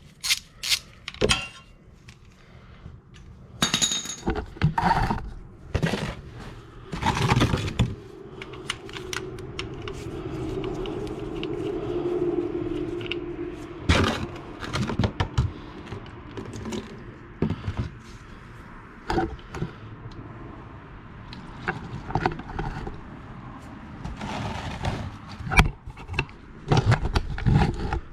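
Metal hand tools clicking, clinking and scraping against each other during work on a motorcycle's oil drain plug and drain pan, with a steadier sound lasting several seconds midway.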